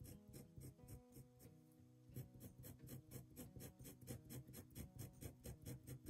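Quiet acoustic guitar background music over the rapid, regular scratch of a fine-line marker drawing hatching strokes on paper.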